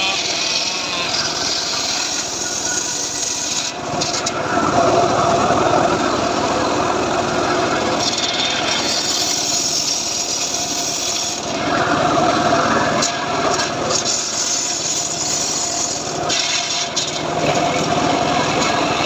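A homemade engine-driven saw rig (gergaji srekel) running steadily while its blade cuts through sengon wood. The cutting sound swells about four seconds in, dips briefly around eleven seconds, and comes back in again.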